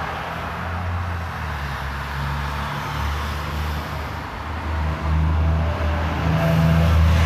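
Road traffic, with cars driving along the street, picked up by a smartphone's built-in microphone. The low rumble grows louder about five seconds in as a car comes closer.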